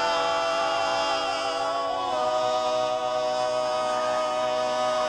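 Male barbershop quartet singing a cappella, holding the sustained closing chord of the song; the chord shifts once about two seconds in, then rings on steadily.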